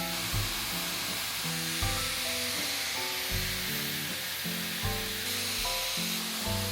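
Background music with low notes changing every second or so, over a steady airy hiss from the Dyson Airwrap hot-air styler blowing.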